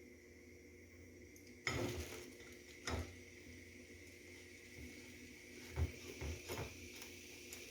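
Kitchenware clattering as it is handled: a loud clatter about two seconds in, another knock a second later, then a few lighter knocks near the end, over a steady faint hum.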